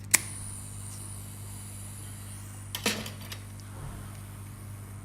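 Hot-air rework station: a sharp metal click as the nozzle is handled, then a high steady hiss of air for about two seconds, and a few more clicks near the middle, over a steady low hum from the station.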